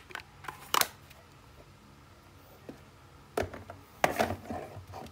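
Handling noise of a hard eyeglass case and plastic glasses frames: a sharp click about a second in, then a cluster of clicks, knocks and rustling near the end.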